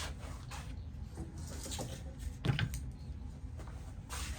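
Light clicks and knocks of tools and metal being handled, with one louder knock about two and a half seconds in, over a low steady hum.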